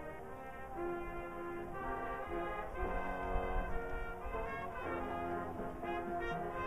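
Marching band playing, its brass section holding sustained chords that change every second or so, over low drum and bass notes.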